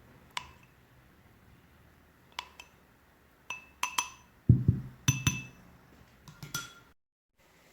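Glass containers and dishes clinking as they are handled on a counter: about ten sharp clinks, each with a short ring, and one heavier knock about halfway through.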